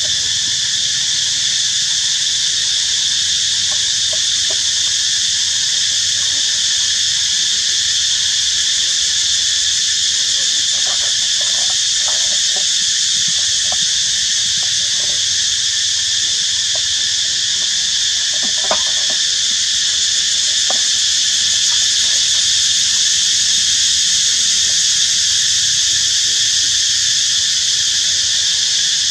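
Loud, steady insect chorus, a continuous high-pitched drone in several bands. A few faint clicks and rustles come through it, the sharpest about two-thirds of the way in.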